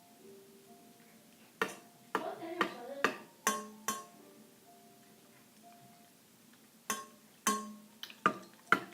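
Mixing spoon knocking and clinking against a mixing bowl while stirring a thick flour-and-soap mixture, in irregular sharp strikes, with brief faint ringing tones between them.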